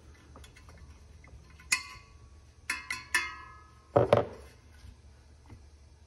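Sharp metallic clinks with a brief ringing, one and then a quick cluster of three about two to three seconds in, as a sheet-steel squirrel-cage blower wheel and its hub are handled, followed about four seconds in by a single heavier thump.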